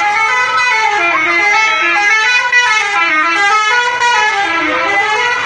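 Bus 'telolet' horn, a multi-tone musical air horn, playing a quick melody of changing notes.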